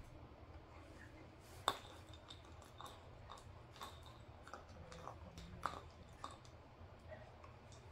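A puppy gnawing at a chew toy hanging on a rope: a scatter of faint, irregular clicks and ticks from teeth on the toy, with one sharper click nearly two seconds in.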